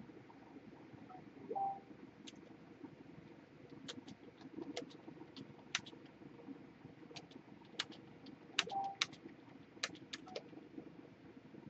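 Quiet room with scattered faint clicks and two brief squeaky tones, about seven seconds apart.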